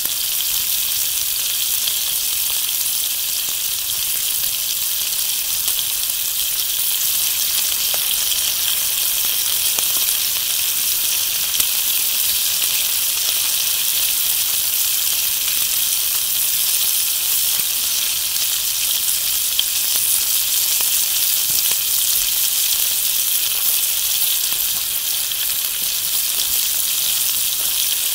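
Chunks of meat sizzling steadily in a skillet over a wood fire, with a few faint pops.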